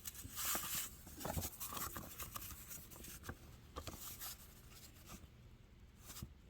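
Faint paper rustling as an old greeting card and its envelope are handled: a string of short, soft rustles with a few light clicks.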